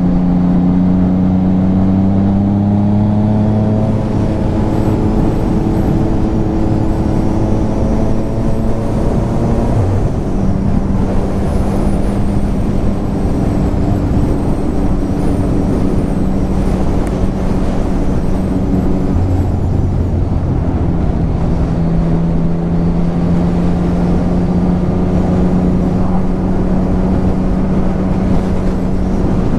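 Motorcycle engine running at road speed under steady wind rush, as heard from a camera on the bike. Its note rises a little in the first few seconds and changes pitch in steps about ten seconds in and again near twenty seconds, as the throttle and gears change.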